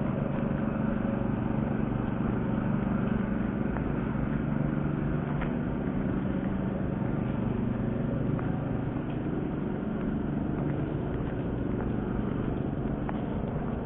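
A vehicle engine running steadily at an even speed, a constant low hum with a noisy wash over it.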